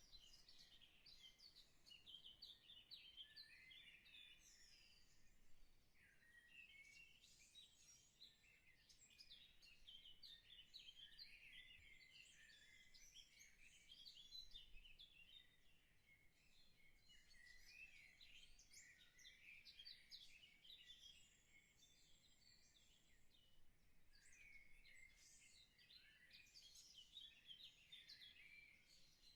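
Faint birdsong: many quick chirps and twitters from small birds, coming in bursts with short lulls between them.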